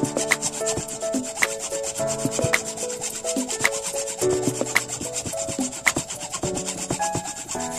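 Instrumental background music with a steady beat: melody notes changing pitch every fraction of a second over regular ticking percussion.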